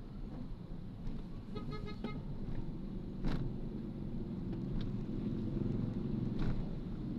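Steady road-traffic rumble, with a short horn toot about one and a half seconds in and a couple of sharp knocks later on.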